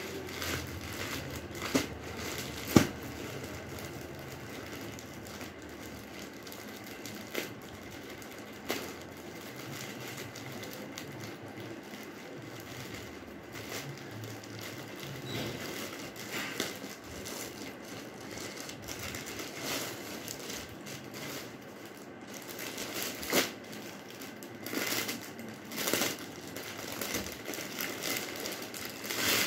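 Plastic courier mailer and clear plastic garment wrappers crinkling and rustling as they are handled, opened and unpacked, with scattered sharp clicks. A loud crack comes a few seconds in, and the crinkling gets louder and busier near the end.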